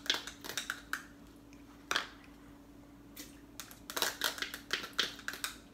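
Thin plastic single-serve corn cups crinkling and crackling as they are peeled open, squeezed and emptied, with a single knock about two seconds in. A faint steady hum runs underneath.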